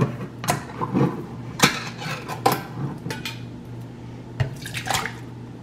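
Canned diced tomatoes being tipped and scraped out of a tin can into a plastic blender cup: a run of irregular clinks and knocks of the can and utensil against the cup, over a low steady hum.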